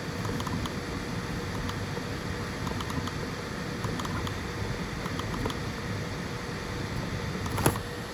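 FDM 3D printer running a print: a steady fan and motor hum with light ticking from the moving print head, and one sharper click near the end.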